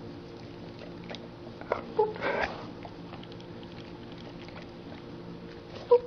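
A large black-and-tan dog sniffing at a hand touching its nose, with one brief sniff burst about two seconds in. Two short, sharp pitched blips sound, about two seconds in and near the end, over a faint steady hum.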